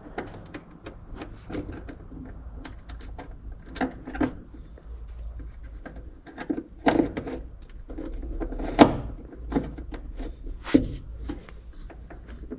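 Scattered clicks, knocks and light rattles of hand work with wiring parts and tools, a few sharper knocks about seven, nine and eleven seconds in, over a faint low hum.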